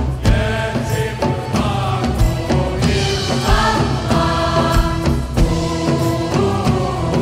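Mixed choir singing a slow religious hymn with instrumental accompaniment and a low, recurring beat.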